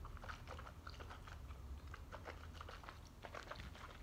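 Faint, irregular wet mouth clicks and smacks from a person sipping from a mug and working at food stuck in her teeth.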